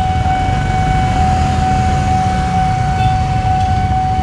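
Level-crossing warning alarm sounding one steady, unbroken electronic tone while the barrier is down, over the low rumble of idling motorcycles.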